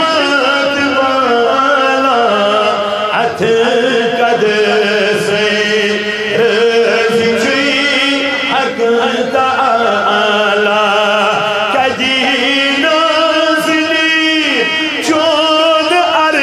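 A man singing a naat, a devotional poem in praise of the Prophet, solo into a microphone. The voice is loud and continuous, with long wavering held notes and ornamented turns between phrases.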